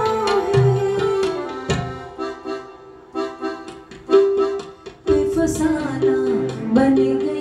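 Live song accompaniment: an electronic keyboard with an accordion-like tone plays repeated notes of the melody over tabla strokes, with a woman singing into a microphone near the start and end.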